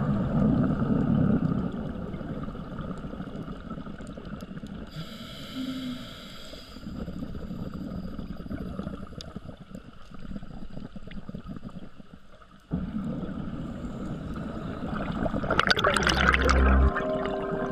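Underwater sound of a scuba diver breathing through a regulator: gurgling water noise, a hissing inhale about five seconds in, and a loud burst of exhaled bubbles near the end.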